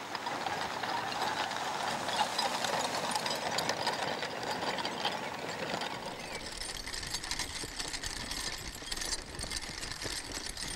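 Horse-drawn iron chain harrow dragged over grass, its metal links rattling and clinking steadily as it breaks up manure spread on the meadow.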